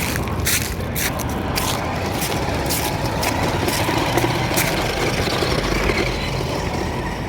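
Toy remote-control car driving over rough ground: a steady motor noise with many scattered clicks and scrapes from the wheels.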